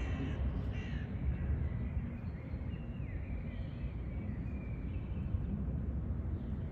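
Birds calling outdoors, a few short high calls, one falling in pitch about three seconds in, over a steady low rumble.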